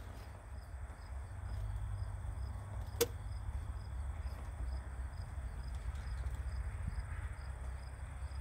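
Insects chirping steadily in short regular pulses about twice a second over a low rumble, with one sharp click about three seconds in.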